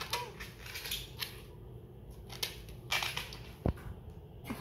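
Scattered light clicks and taps, about half a dozen single sharp ticks a fraction of a second to a second apart.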